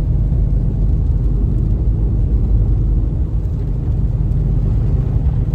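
Pickup truck driving, heard from inside the cab: a steady low rumble of engine and tyres.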